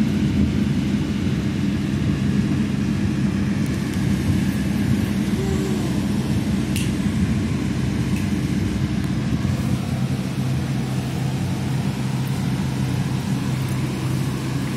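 A motor running with a steady low hum, holding several even tones throughout.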